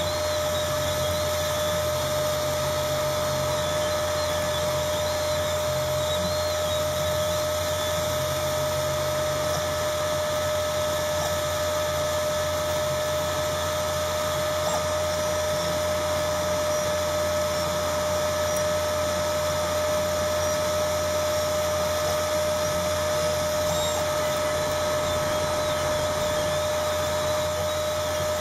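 Desktop CNC engraving machine running: the spindle motor gives a steady whine, while the stepper motors buzz in short tones that change pitch and start and stop every second or two as the axes move.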